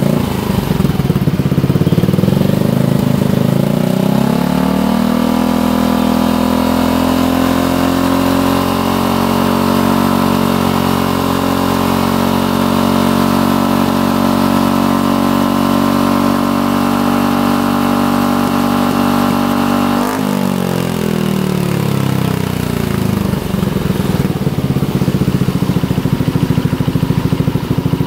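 Yamaha NVX 125 scooter's single-cylinder engine running through a WRX stainless full-system exhaust with the 23 mm cone-shaped baffle fitted. It rises steadily from idle over several seconds and holds high revs. About two-thirds of the way in the throttle is released and the revs fall back to idle.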